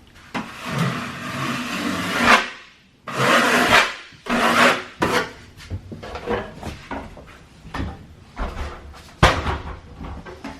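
A hand tool scraping and rubbing over drywall in repeated strokes: a few long strokes in the first few seconds, then a run of short, quick ones.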